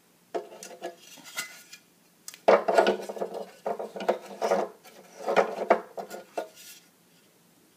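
Hard plastic pieces of a TV base stand clattering and scraping against each other as they are handled and fitted together, in three bouts.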